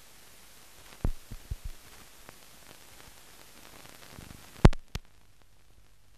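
Empty soundtrack of a silent film transfer: steady hiss with four low thumps in quick succession about a second in, then a loud pop a little past halfway, after which the hiss drops away.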